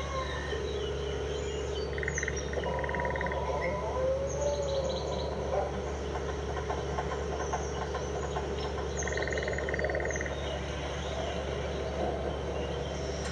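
Electronic keyboard's built-in sound effects: a mix of chirps and short electronic tones over a steady low hum. A rapid trilling tone sounds twice, about two seconds in and again about nine seconds in.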